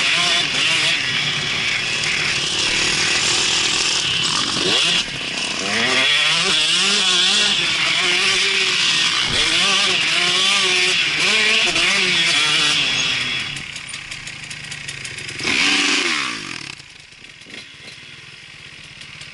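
Motocross bike engine running hard on the track, its pitch climbing and falling again and again as it revs through the gears. After about thirteen seconds it drops to a lower level, gives one short rev, then settles to a quieter, steady idle.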